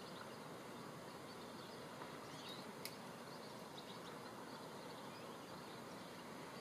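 Faint, steady outdoor hiss of garden ambience, with a few faint, short, high sounds and one sharp click about three seconds in.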